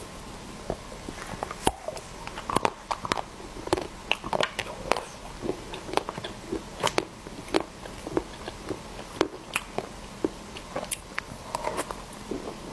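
Close-miked eating sounds: a woman chewing soft cream cake from a spoon, with wet mouth clicks and lip smacks coming irregularly, several a second.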